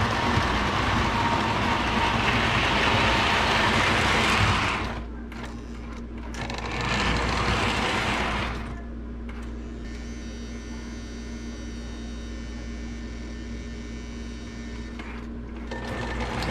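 Lionel 671 turbine model locomotive running on three-rail O-gauge track, its motor and wheels making a steady rumble. The noise is loud at first, drops about five seconds in and swells briefly, then settles to a quieter steady hum with a whine. It grows louder near the end as the engine comes closer.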